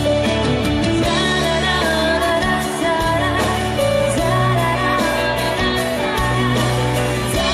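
A female singer sings live into a microphone over a pop-rock band, with sustained bass notes and drums keeping a steady beat on the cymbals.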